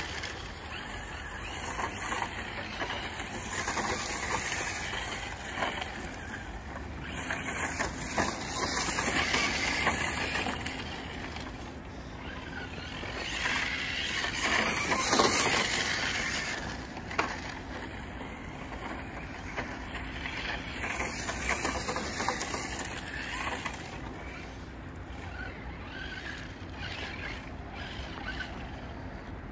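Electric 1/8 short-course RC truck (Hobao Hyper SC8 on a 4S LiPo) driving on gravel: motor whine swelling and fading with the throttle over the crunch of tyres on loose stones, loudest about fifteen seconds in.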